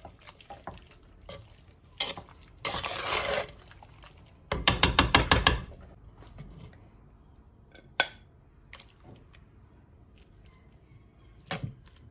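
A metal ladle scraping and clinking against a clay güveç pot and a ceramic plate as bean stew is served. About four and a half seconds in comes a quick run of about ten clinks, the loudest part, and there are single sharp clicks later on.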